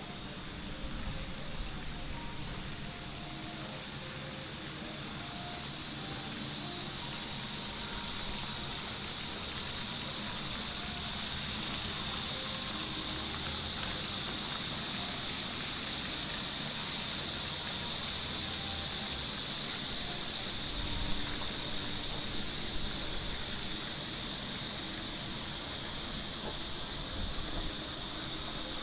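A chorus of cicadas in the trees: a steady, high-pitched buzzing drone that swells to its loudest about halfway through, then eases off a little.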